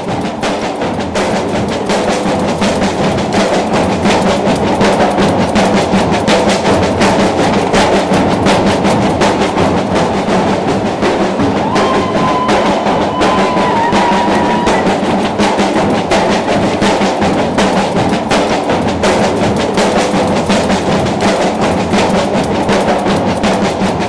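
Percussion band drumming a fast, steady rhythm on large bass drums beaten with mallets, with a short held tone about halfway through.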